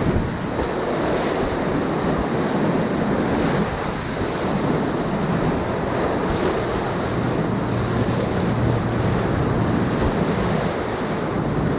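Class III whitewater rushing and splashing steadily as a kayak runs down a rapid's tongue and wave train, with wind noise on the microphone.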